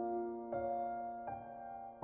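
Slow background piano music, single sustained notes, a new one struck about every three quarters of a second.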